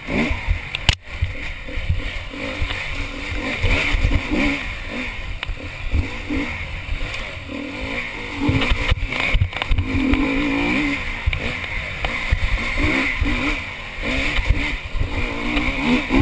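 Honda enduro motorcycle engine revving up and down continually as it is ridden hard along a rough forest trail, heard from a helmet-mounted camera. A few sharp knocks come through from the bumps, about a second in and again a little past the middle.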